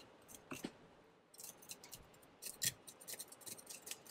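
A knife blade scraping scales off a whole yellowtail snapper: a run of quick, short rasping strokes, few at first, then coming thick and fast from a little over a second in.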